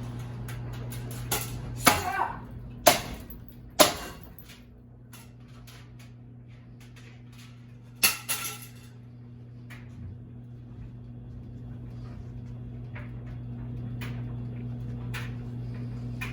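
Sharp hard strikes against a ceiling fan being smashed: three in quick succession about two to four seconds in and one more near the middle, each with a short ringing tail, over a steady electrical hum.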